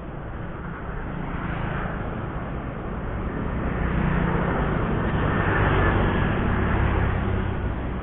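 A motor vehicle passing on the road: a low engine rumble and road noise that swell from about a second in, peak around five to seven seconds, then begin to fade.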